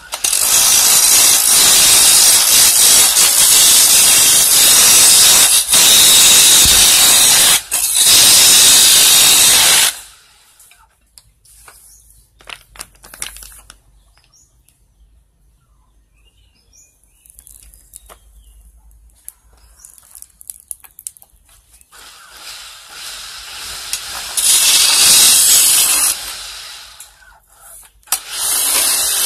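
A hand chisel cuts a spinning wooden handle blank on a manual wood lathe, making a loud, hissing scrape for about ten seconds. Then comes a quiet stretch with small knocks and clicks, and the loud cutting starts again in short passes near the end.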